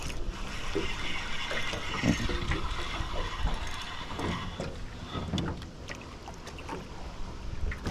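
Small waves lapping against an aluminium boat hull, with wind on the microphone. A spinning reel is wound in during the retrieve, and there are a few light knocks against the boat.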